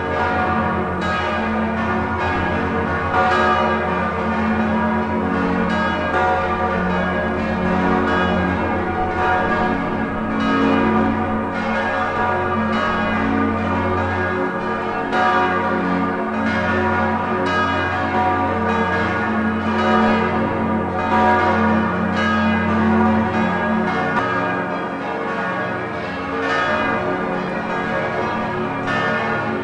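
Full peal of the St. Blasien cathedral's church bells: several bells ringing together, their strokes overlapping in a continuous, loud, many-toned sound.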